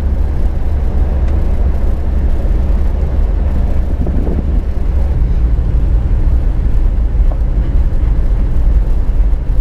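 Cabin noise of a four-wheel drive under way on a dirt track: a loud, steady, deep rumble of engine and tyres.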